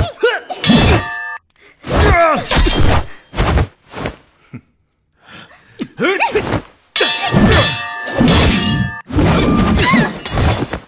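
Sword fight: sword blades clashing, several strikes ringing on after the hit, mixed with the fighters' grunts and shouts, in fast bursts with a short lull a little before the middle.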